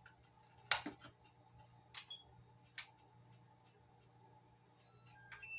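A few sharp clicks and taps of small hard parts being handled, the loudest about a second in. Near the end comes a short run of electronic beeps at stepped pitches.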